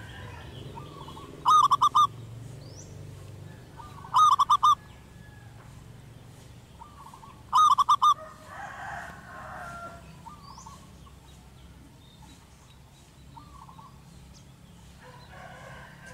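Zebra dove calling: three loud bursts of rapid staccato cooing notes, a few seconds apart, in the first half, with fainter calls of the same pattern in between and later.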